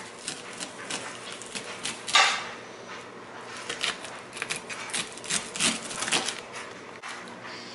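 Kitchen knife cutting the kernels off an upright ear of corn: a run of short, crisp scraping strokes down the cob, one louder and longer scrape about two seconds in.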